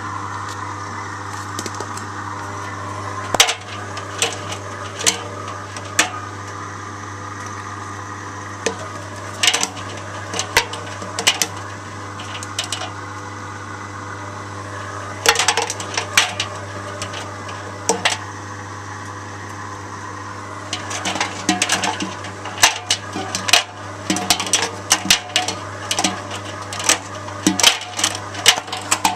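Zanussi washing machine running with its door open on a spin programme: a steady hum from the machine under irregular clicks and knocks from the laundry and drum, coming thicker and faster in the last several seconds.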